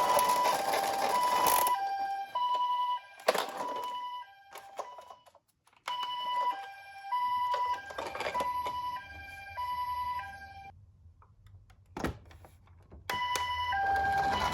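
Toy ambulance minicar's electronic two-tone siren, alternating a higher and a lower note about every half second, with a few sharp knocks and clicks. It stops for about two seconds near three-quarters of the way through, then starts again.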